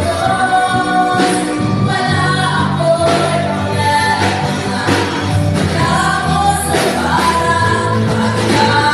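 Women's group singing a Christian song together into handheld microphones, amplified through the church loudspeakers, over a sustained instrumental accompaniment.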